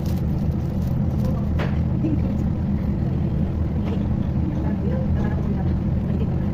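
A steady low hum, even in level throughout.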